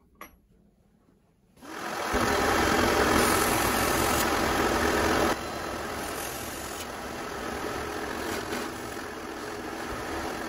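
Drill press starting up and running as a 9/64-inch bit bores holes through a router-table insert plate. It comes in about a second and a half in and drops abruptly to a lower, steady level about five seconds in.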